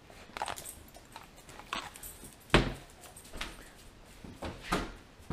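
German Shepherd dogs moving about on a hard floor: scattered light clicks and taps, with one louder thump about two and a half seconds in.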